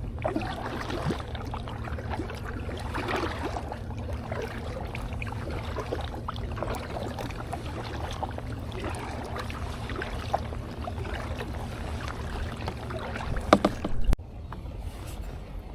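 Kayak paddle strokes dipping and pulling through calm water in a slow rhythm, about every three seconds, over a steady low hum. A few sharp knocks come near the end.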